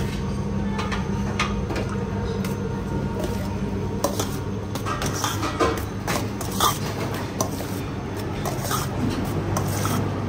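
Plates and serving utensils clinking and knocking now and then over a steady low hum, with the sharpest knocks between about four and seven seconds in.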